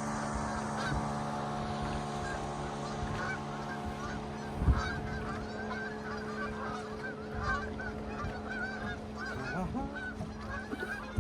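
Many birds calling at once in short, overlapping honking calls, over a steady motor hum that starts at the beginning.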